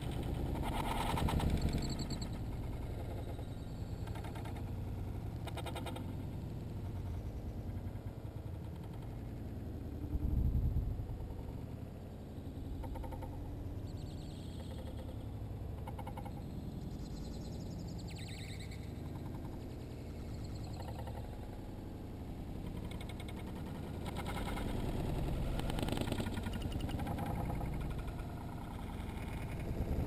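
Slowed-down live sound from a bird feeder where house sparrows are feeding and flapping, drawn out into a low, murky rumble that sounds creepy. There are deeper swells about a second in and again about ten seconds in.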